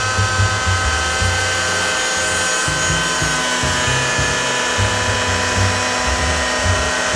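Home-built CNC router milling attachment running as it cuts walnut: a steady machine whine of several held tones that shifts in pitch about halfway through and again near the end, over a pulsing low rumble.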